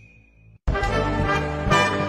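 Background music: the previous track fades out, there is a brief gap, and a new loud music cue cuts in abruptly about two-thirds of a second in.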